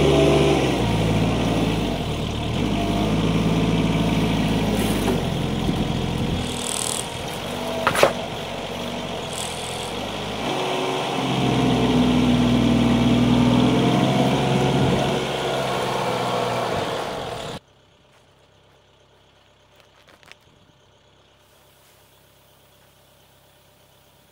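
Tractor engine running with its speed shifting up and down, with one sharp crack about eight seconds in. It cuts off suddenly about seventeen seconds in, leaving only a faint low hum.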